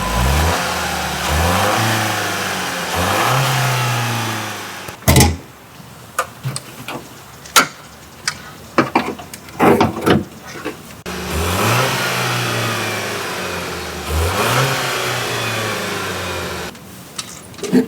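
Toyota Tacoma hybrid's 2.4-litre turbocharged four-cylinder engine being revved in repeated blips, each rising and falling in pitch, in two bouts. Between them come a sharp knock and a run of scattered clicks and knocks.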